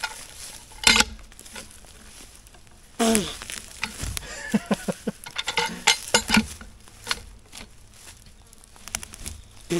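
Rustling and crackling of dry brush, twigs and leaves, with irregular sharp snaps, the loudest about a second in and around three seconds in.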